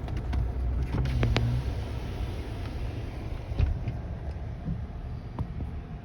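Car or truck engine running, heard from inside the cab as a steady low rumble, with a few faint knocks.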